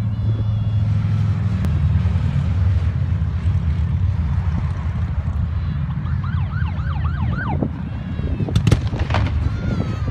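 A column of motorcycles riding past, their engines a steady low rumble. About six to seven and a half seconds in, a few short rising calls from onlookers sound over it.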